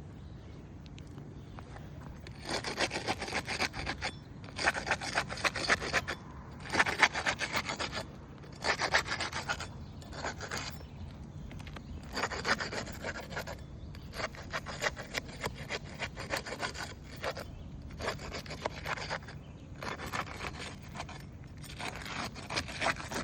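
Flat metal tool being scraped back and forth under asphalt roof shingles to break their seal and free the damaged strip, in repeated scraping passes about a second or so long with short pauses, starting about two seconds in.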